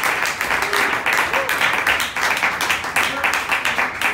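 Audience applauding: many hands clapping in a dense, continuous patter.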